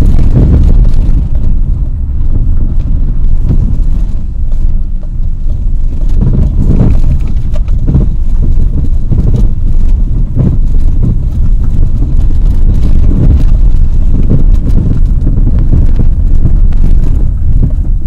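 Car driving slowly on a rough country lane, heard from inside the cabin: a steady low rumble of engine and tyres, with a few brief knocks near the middle.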